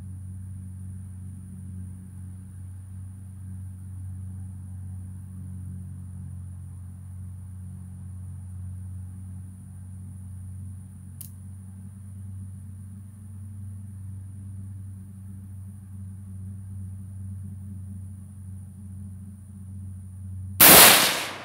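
A single rifle shot from a Radical Firearms AR-15 chambered in 7.62x39, very loud and sharp with a short echoing decay, near the end. Before it there is only a steady low rumble.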